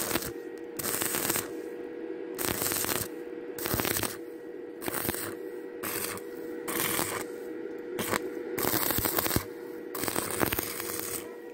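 Stick (MMA) welding arc from a Stanley Star 4000 inverter welder crackling and sputtering on a rusty steel hinge, struck in short bursts of under a second, about eight times, with brief gaps between. A steady faint hum runs underneath.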